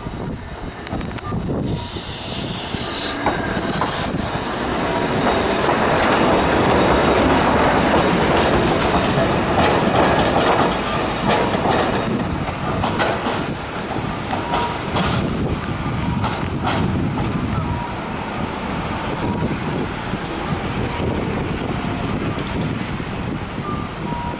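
Fukui Railway 770-series articulated tram running on street track, its wheels rumbling and clacking over the rails and points. A high wheel screech sounds about two to four seconds in, and the running noise is loudest in the middle.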